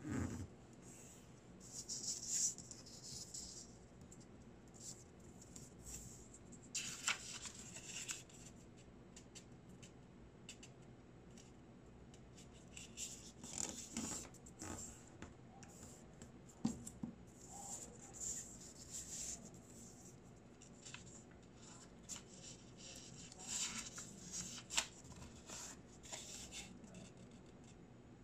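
Origami paper being folded and creased by hand: bouts of soft rustling and sliding paper, with a few sharper crinkles as fingers press the folds flat.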